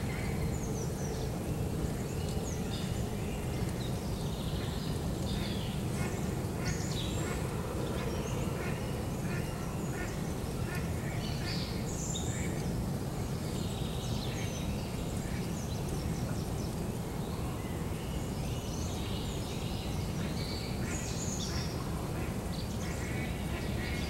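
Many short bird calls scattered all through, over a steady low rumble.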